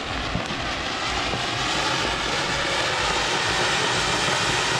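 Ground fountain firework spraying sparks with a steady rushing hiss that grows a little louder over the first second and then holds.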